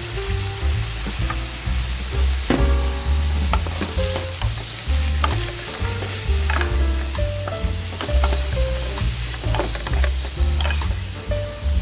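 Food sizzling and frying in a pan on the stove, with scattered clicks of a utensil against the pan, over background music with a steady bass line.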